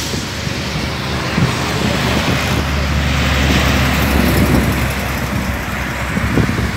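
A tractor-trailer truck driving past: a low diesel engine drone with tyre and road noise that swells to its loudest about three to four seconds in as the truck goes by, then eases off.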